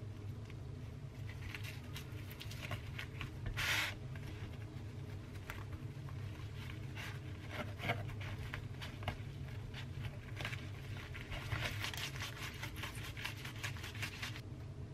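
Bamboo kimbap rolling mat rustling and clicking as hands roll and press a seaweed rice roll in it on a wooden cutting board, with a brief louder scrape about four seconds in and a dense run of rattling clicks near the end. A steady low hum sits underneath.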